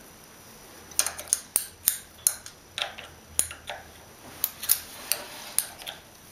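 A string of sharp, irregular metal clicks and clinks, starting about a second in: a wrench working the outer clamping bolts of a jointer's knife cutterhead, lightly snugging a freshly set knife in place.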